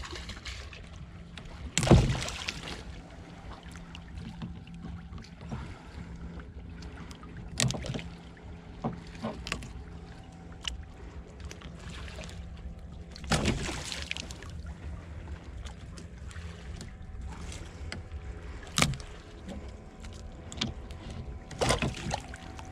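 Sharp knocks and thumps against a small boat's hull and gunwale as a big catfish is handled alongside with a gaff and line, over a steady low hum. About five knocks, the loudest about two seconds in.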